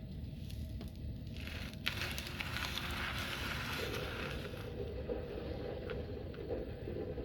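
Kinetic sand being cut and squished: a sharp tick a little under two seconds in, then a soft crackling, scraping texture that fades out near five seconds, over a steady low hum.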